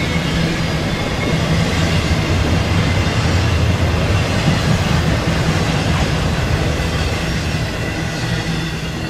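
A BNSF intermodal freight train's container and trailer cars roll past, their wheels rumbling and clattering steadily on the rails. The rumble eases off near the end as the last car clears.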